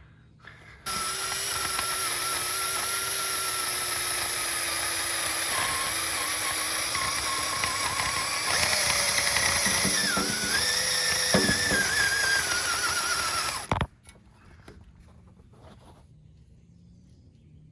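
Power tool spinning a wire wheel against the cast-iron engine block, scraping the ground-cable contact spot clean. It starts about a second in and runs steadily with a high whine. The pitch sags briefly about ten seconds in as it is pressed harder, and it stops about fourteen seconds in.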